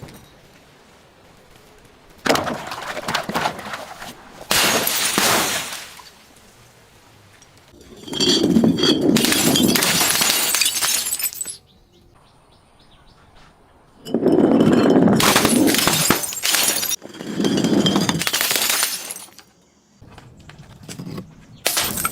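Glass being crushed and breaking, in about six separate crunching, shattering bursts, the longest lasting a few seconds each.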